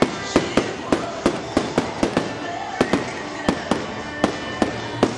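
Fireworks display going off: a rapid, irregular string of bangs and crackles from aerial shells, about three or four reports a second.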